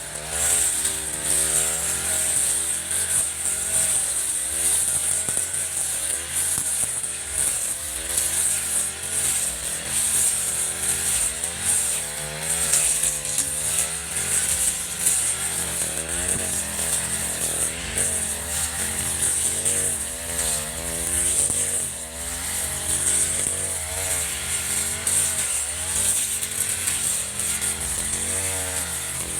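Echo RM435 brush cutter's two-stroke engine running continuously, its speed rising and falling again and again.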